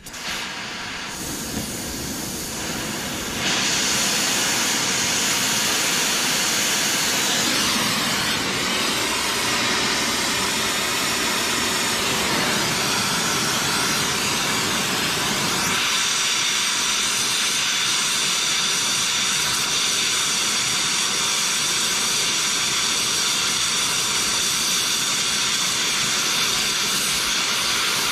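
Oxyacetylene torch burning with a steady hiss, growing louder about three and a half seconds in, as its flame heats a wheel bearing race to expand it off the drive flange.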